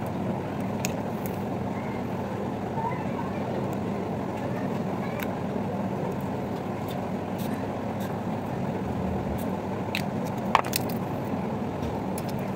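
Steady low background noise with a few small clicks, the loudest about ten and a half seconds in.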